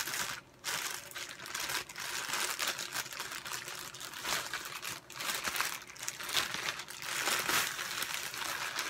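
Thin clear plastic bag crinkling and rustling in irregular bursts as a tripod is worked out of it.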